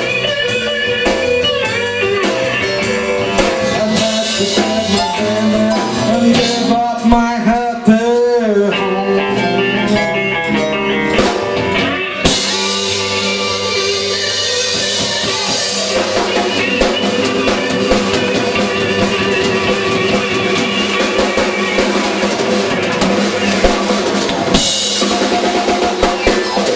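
Live blues band playing, with an electric guitar, bass guitar and drum kit. The guitar bends notes about a quarter of the way in, and the cymbals grow louder from about halfway.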